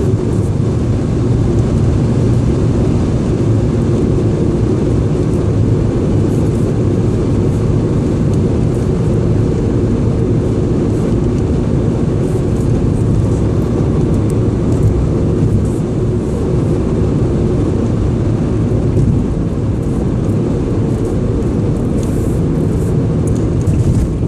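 Steady road and engine noise of a car driving, heard from inside the cabin: an even low rumble.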